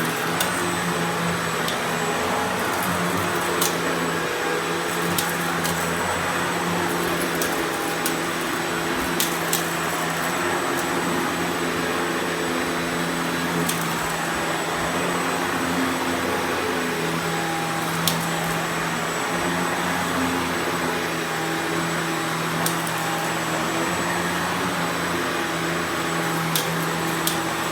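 Riccar Prima Tandem Air canister vacuum running steadily while vacuuming, a constant motor hum and airflow rush, with a few short sharp clicks scattered through.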